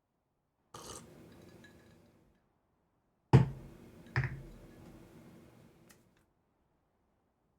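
A few sharp knocks or clinks, each trailing off in a ringing decay. The loudest comes about three seconds in, with a second one under a second later, between near-silent stretches.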